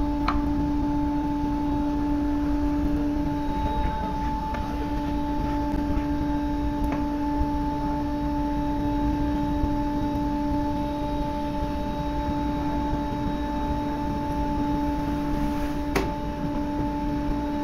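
Electric air blower on a foundry furnace running with a steady, unchanging hum over a low rumble of the forced-draft fire, with a few light knocks about a second in, around seven seconds and near the end.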